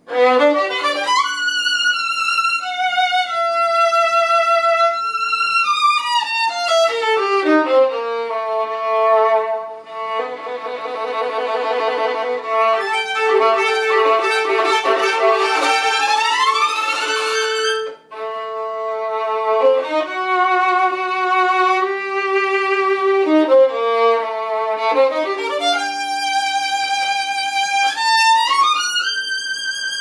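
Solo violin bowed, playing long held notes joined by slides in pitch, one sweeping down about a quarter of the way in and others rising near the middle and near the end, with a rapid wavering passage in between. There is a short break just past the middle.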